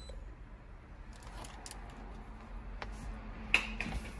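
A few light clicks and taps over a faint low hum in a car's cabin, with one sharper click about three and a half seconds in.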